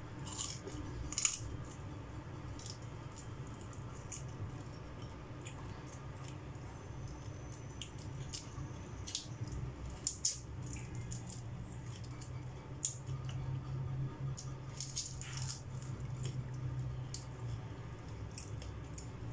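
Mukbang eating sounds: wet chewing and lip smacks on grilled shrimp eaten by hand, with scattered short clicks and crackles as the shells are handled, over a steady low hum.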